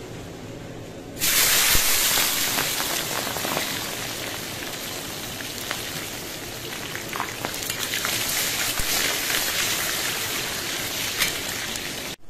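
Food put into very hot oil in a cast-iron kazan, starting a loud deep-frying sizzle about a second in, with scattered pops and crackles. The sizzle stops abruptly just before the end.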